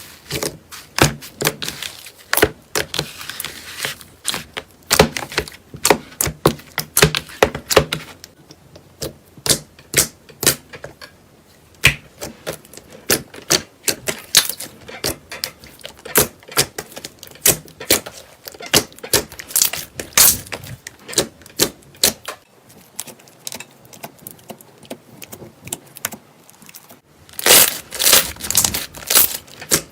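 Slime being squished and poked by hand, giving a run of irregular sharp clicks and pops, thickest and loudest near the end.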